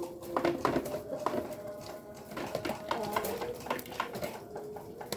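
Village chickens making low, drawn-out clucking calls, mixed with many quick sharp taps of pecking at feed.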